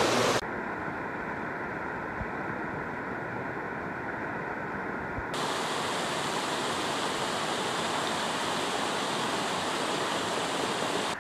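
Steady rushing of river water. It changes abruptly about half a second in and again about five seconds in: duller for a few seconds with a faint steady tone above it, then fuller and brighter.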